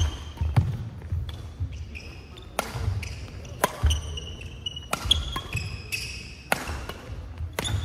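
Badminton doubles rally: sharp racket strikes on the shuttlecock about every one to two seconds, with court shoes squeaking and feet thudding on the wooden floor between shots.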